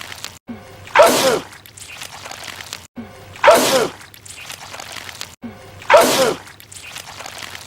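A man's loud sneeze, the same sneeze repeated three times about two and a half seconds apart, each with a short falling vocal sound.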